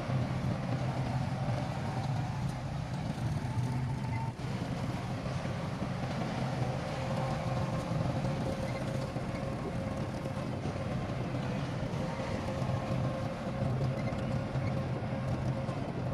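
Heavy construction-machine diesel engine running steadily: a low drone with a faint steady whine above it, and a brief break about four seconds in.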